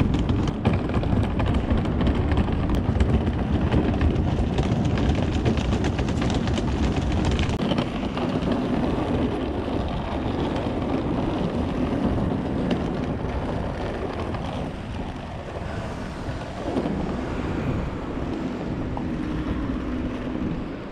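Hard-shell suitcase wheels rolling over paving stones: a steady rumble with fine rapid clicks, louder in the first several seconds, with some wind on the microphone.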